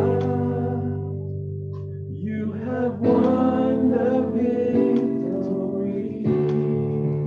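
Worship song: a man singing over sustained keyboard chords. His voice pauses briefly about a second in, then comes back.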